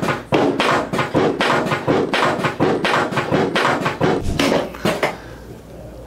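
A rapid, even series of sharp knocks, about three or four a second, stopping about five seconds in.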